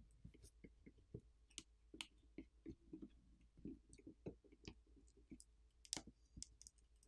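Faint, scattered clicks and taps of a plastic pry pick and fingers working an iPhone 15 Pro battery loose from its adhesive, with a sharper click about six seconds in as the battery comes free.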